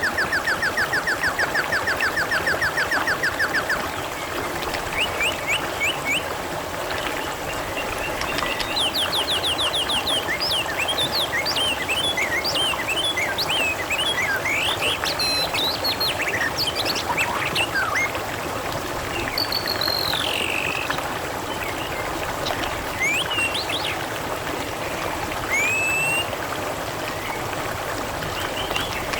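Water trickling steadily, with several small birds chirping and whistling over it. A fast, even trill runs at the start and stops about four seconds in.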